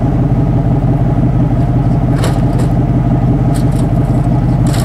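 Vehicle cabin noise while driving: a steady low engine and road drone, with a few brief light clicks or rattles in the second half.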